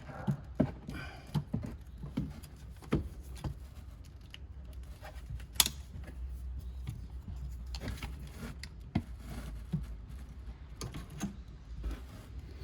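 Irregular small clicks, taps and rattles of hands and tools working loose the plug and fittings of a car's power antenna assembly, with one sharp click about five and a half seconds in.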